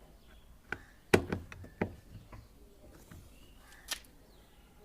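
A few sharp knocks and clicks of hard parts being handled during washing-machine reassembly, the loudest a little over a second in and a last one about four seconds in.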